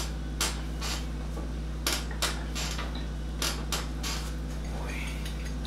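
A series of short, sharp clicks and creaks, about seven of them scattered unevenly, the strongest about two seconds in, as hands press down hard on the back of a person lying on a padded treatment table during a hilot back manipulation. A steady low hum runs underneath.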